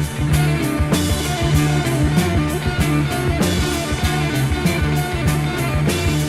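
Early-1970s progressive rock recording playing an instrumental passage: sustained band chords over a steady drum beat.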